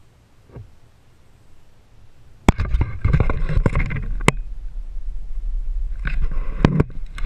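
Handling noise on a plastic kayak: a sudden sharp knock about two and a half seconds in, then a run of knocks, scrapes and rustling as the camera is picked up and turned, with a steady low rumble on the microphone and another cluster of clicks near the end.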